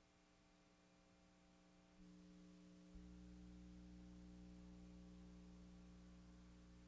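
Near silence with a faint, steady electrical hum that gets a little louder about two and three seconds in.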